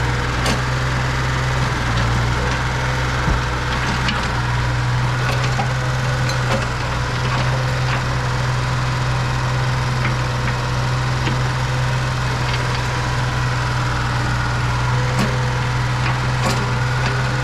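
Mini excavator's diesel engine running steadily, with a few light clicks over the top.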